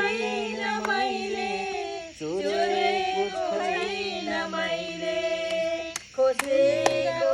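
Voices singing a Nepali song together in long, held notes. A few sharp knocks sound near the end.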